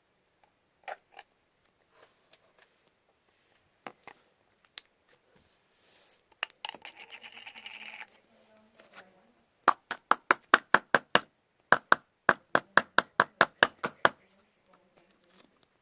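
Clear slime being squeezed and pressed, giving sharp popping clicks as trapped air bursts, with a drawn-out squeak about seven seconds in. From about ten seconds in the pops come quickly and loudly, about four a second, for around four seconds.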